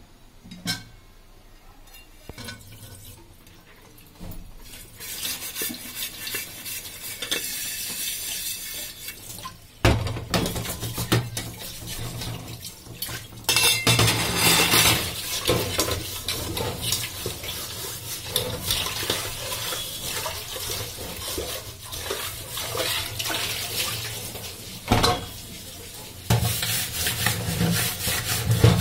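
Tap water running and splashing into an aluminium pot in a stainless steel sink as it is washed, the pot clanking and scraping against the sink. The first few seconds hold only a few light knocks before the water starts.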